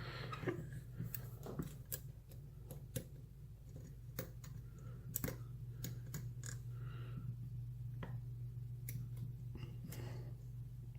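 Lock pick and tension wrench working the pins of a brass-bodied padlock: scattered faint clicks and scrapes at an uneven pace, over a steady low hum.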